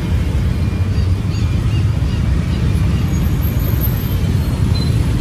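Street traffic noise: a steady low rumble of passing vehicles.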